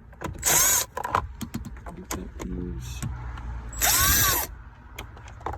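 Power drill spinning a 7mm socket to back out a dashboard bolt, in two short bursts about half a second in and about four seconds in, its pitch swinging up and down. Small clicks and rattles of the tool and bolt come in between.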